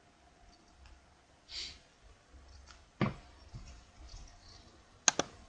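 A few sharp computer-mouse clicks over quiet room tone: one about three seconds in and two in quick succession near the end, with a soft breath before them.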